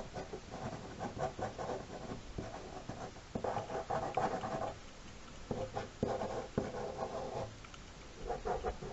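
Ink pen scratching on paper as lines are drawn, in short runs of strokes with brief pauses between them.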